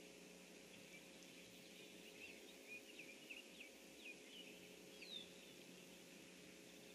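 Faint birdsong: a run of short high chirps and quick whistles, busiest from about two to five seconds in, over a low steady hum and hiss.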